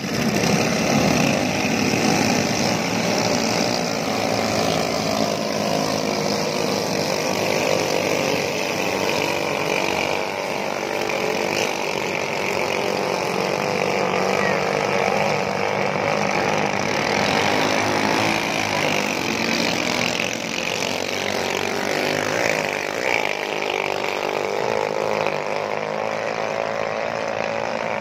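Racing boats' outboard motors running on the water with a steady buzzing drone, with voices mixed in underneath.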